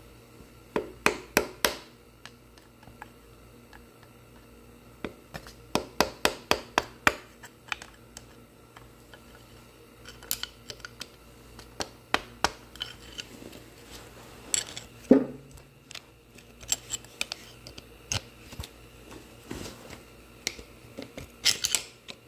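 A screwdriver and a flat metal tool scraping, prying and tapping at a grime-caked spring and bolts on the engine block: runs of sharp metal clicks, with one heavier knock about two-thirds of the way through.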